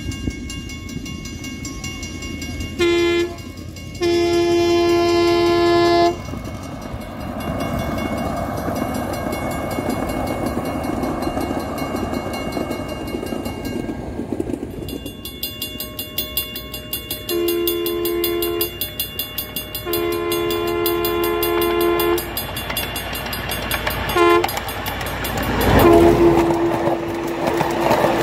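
Train horn sounding a short blast and a long one, then later the grade-crossing signal of long, long, short, long. Between and under the blasts the train rolls steadily along the rails with a clickety-clack.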